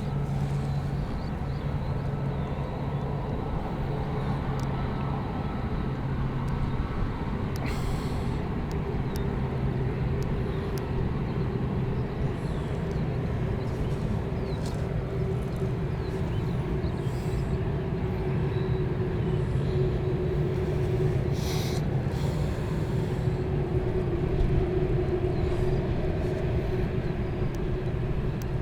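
A steady engine drone, with a constant low hum and a fainter higher tone over a noisy rush, and a few faint clicks.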